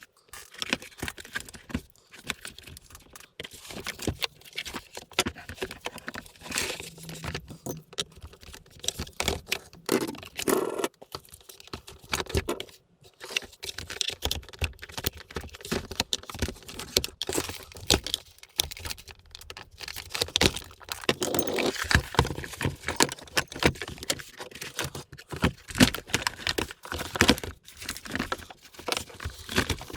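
Irregular clicks, knocks and rattles of a vacuum cleaner's plastic and metal parts being handled and taken apart by hand.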